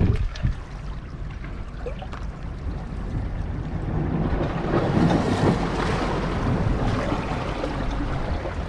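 Outdoor shoreline ambience: wind buffeting the microphone over water washing against rocks, a steady rushing that swells a little after the middle, with a few faint ticks.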